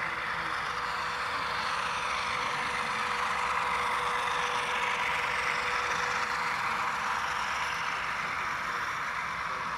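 HO scale ES44AC model locomotive's sound decoder playing a GE diesel engine running steadily, heard through the model's small onboard speaker, so it sounds thin with little bass. It swells slightly in the middle.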